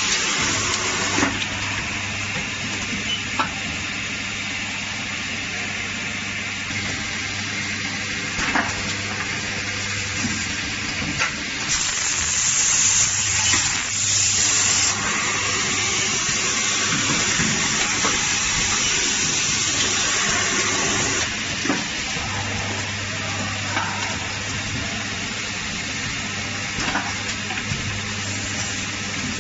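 Automated assembly machine running: a steady hiss with a low hum and scattered sharp clicks. The hiss grows louder and brighter for a few seconds about twelve seconds in. The hum fades through the middle and returns later.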